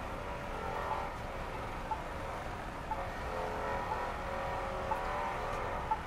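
Accessible pedestrian signal's locator tone ticking about once a second at a signalled city intersection, over the steady sound of car traffic passing and idling.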